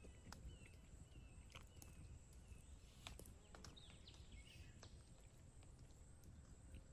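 Near silence with faint, irregular crackles from a wood fire burning in a metal brazier, and a few faint high chirps.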